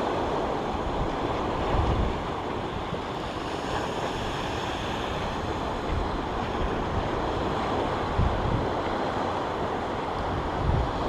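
Steady wash of surf on the shore, with wind buffeting the microphone in low rumbling gusts a few times.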